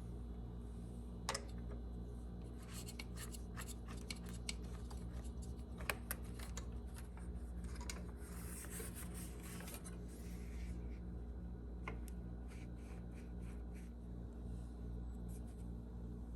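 Scattered light clicks, scrapes and rubbing from hand work on engine parts, over a steady low hum; a longer scraping stretch comes about eight seconds in.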